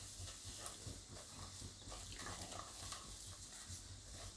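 Chickpea flour (besan) roasting in hot oil in a wok (kadai) while a silicone spatula stirs it: faint soft scraping and scattered light ticks over a low sizzle.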